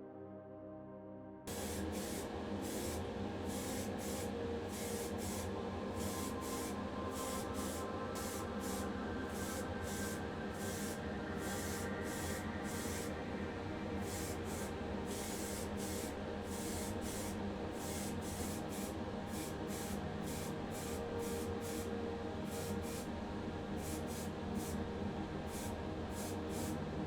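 Primer being sprayed onto small diecast parts: a hiss of spray that starts abruptly about a second and a half in and goes on in many short repeated bursts.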